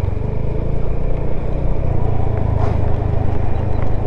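Honda Beat scooter's single-cylinder engine running steadily at cruising speed, with wind and road noise on the microphone.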